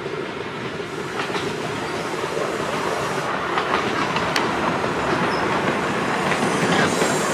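Miniature steam train passing close by, its coaches running over the track with scattered sharp clicks. It grows steadily louder as it draws near.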